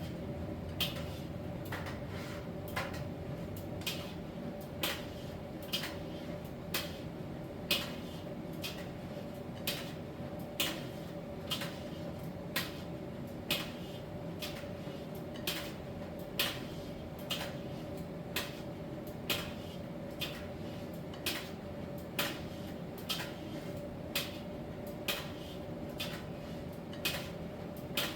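Miele T1 heat-pump tumble dryer running in its drying phase: a steady hum with a constant mid-pitched tone, and a light click about once a second as the drum turns the load.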